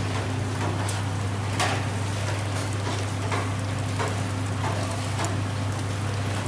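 Kebab skewers sizzling over a charcoal grill in a steady hiss, with a few short crackles from the fire, over a constant low hum.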